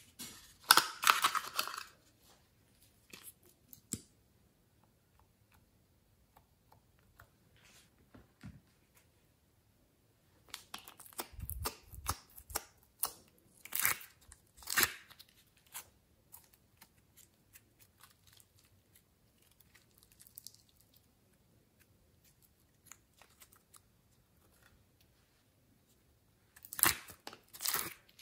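Intermittent crinkling, clicking and tapping of a thin clear plastic container being handled while soft modeling clay is pulled out of it. The louder bursts of handling noise come about a second in, through the middle, and again near the end.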